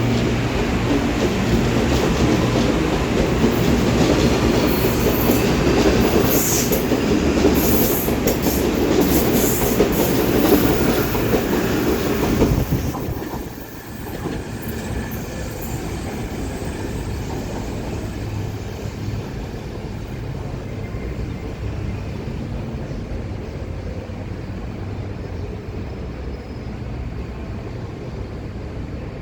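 A train running past on the rails, with wheels clattering over the track. It is loud for about the first twelve seconds and drops off suddenly as it clears, leaving a lower steady rumble.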